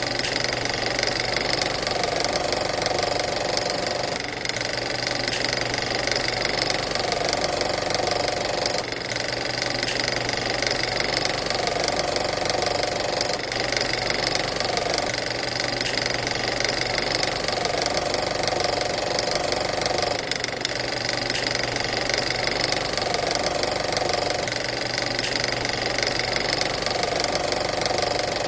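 Old film projector running, its reels and film-advance mechanism making a steady, rapid, even clatter over a constant low hum.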